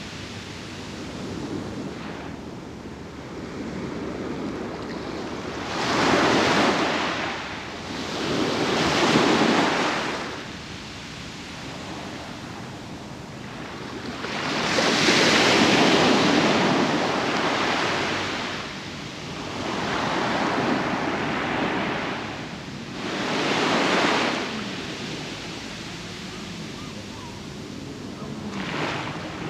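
Ocean waves breaking and washing up on a sandy beach, coming in surges every few seconds with a steady hiss of surf between, the biggest swell about halfway through. Some wind buffets the microphone.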